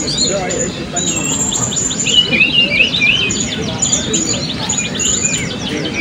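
Many caged blue-crowned hanging parrots (serindit) calling at once: a dense chorus of rapid, overlapping high-pitched chirps and short whistles.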